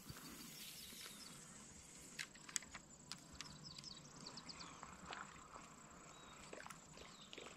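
Near silence: faint outdoor ambience with a few scattered soft clicks and some faint high chirps.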